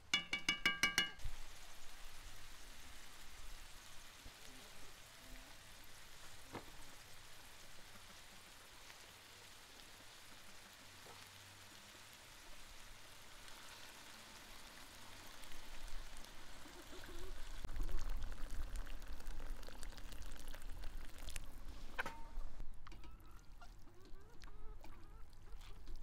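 Liquid pouring steadily for most of the stretch, heavier for a few seconds after the middle. A short pitched animal call opens it, and there is a sharp knock near the end.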